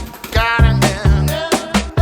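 Background song with a steady drum beat, bass and a vocal line.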